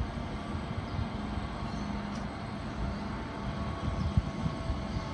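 Two distant 81 class diesel-electric locomotives, EMD two-stroke V12s, approaching with a freight train: a steady, distant engine drone.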